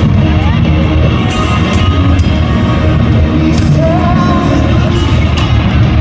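A live rock band playing through a stadium sound system, heard from high in the stands: electric guitars and drums with a voice singing over them.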